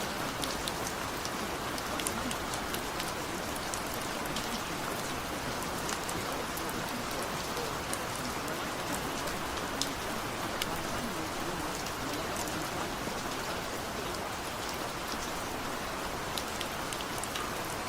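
A steady, even hiss of noise with many faint, scattered high ticks, like rain falling.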